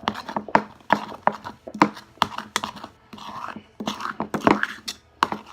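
A spoon stirring sticky homemade slime in a bowl: irregular clicks and wet smacks, two or three a second, as the spoon knocks the bowl and pulls through the slime, which is still sticky and not yet done.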